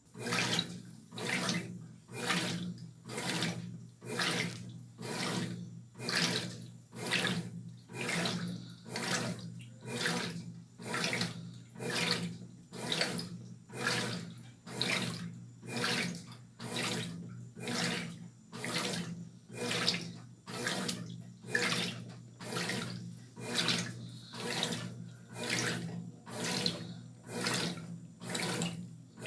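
Brastemp BWR12AB top-load washing machine agitating a load in water: a steady rhythm of water swishing, a little over one stroke a second, over a constant motor hum. It starts abruptly at the opening, marking the wash-agitation stage of the cycle.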